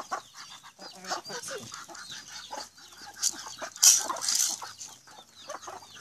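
A backyard flock of chickens feeding on scattered corn: steady clucking and short calls, with the high peeping of chicks throughout. A brief loud rustling burst comes a little before four seconds in.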